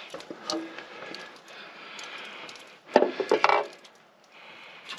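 Knocking and clattering of someone climbing a ladder set against a steel-clad wall, with a loud burst of knocks and rattles about three seconds in.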